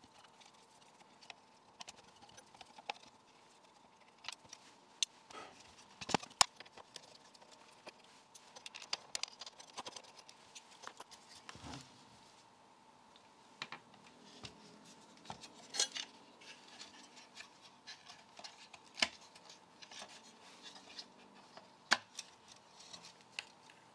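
Scattered clicks, taps and light knocks as an opened bench power supply's metal chassis and its wiring are handled and turned over by hand, with a few sharper knocks among them.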